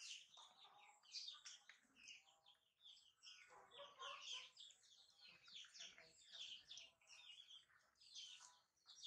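Faint, rapid high chirping of small birds, running on continuously.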